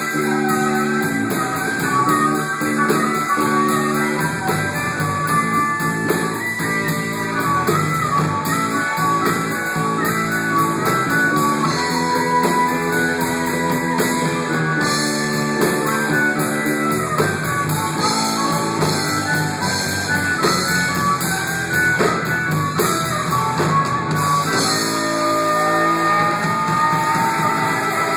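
Instrumental passage of band music with no singing: a guitar playing melodic runs over sustained chords, with drums.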